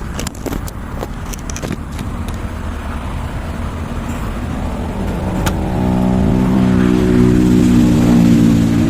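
A motor vehicle engine running over a steady low rumble, with a few knocks early on. The engine sound grows louder from about halfway through and is loudest near the end.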